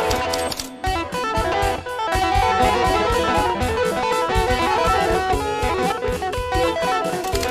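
Music: quick plucked guitar notes over a steady beat.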